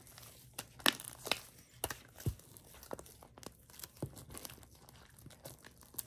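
Fluffy homemade slime being squeezed and stretched by hand, giving off irregular sticky pops and crackles.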